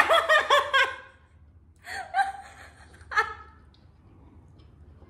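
A woman laughing hard, a quick run of loud "ha"s in the first second, followed by two shorter bursts of laughter about two and three seconds in.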